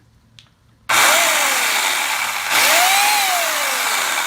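Remington Ranger 8-amp electric pole saw switched on about a second in, its motor and new chain spinning freely in a test run. It gets louder again partway through, with a whine that sweeps up and then falls away.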